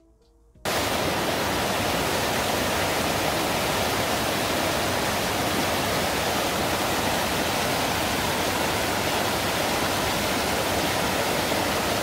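Small mountain waterfall cascading over mossy boulders: a steady, even rush of water that starts suddenly just under a second in.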